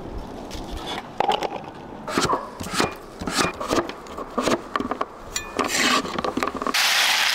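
Kitchen cleaver slicing pumpkin into strips on a wooden chopping board: a run of irregular knocks against the board, several a second. Near the end it gives way suddenly to a steady hiss.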